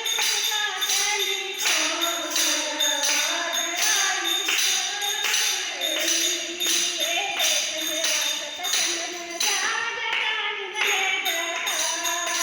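A woman singing a Hindi devotional bhajan to a steady jingling hand-percussion beat, about two strokes a second.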